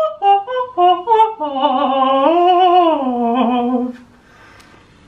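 A man singing without accompaniment: a quick run of short notes at about four a second, then one long held note that swells up in pitch and slides back down, breaking off about four seconds in.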